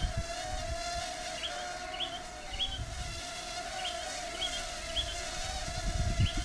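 Huajun W606-16 Volcano mini drone hovering, its small propellers making a steady high buzzing whine whose pitch wavers slightly as the motors correct. Low rumbling wind gusts buffet the microphone now and then, strongest near the end.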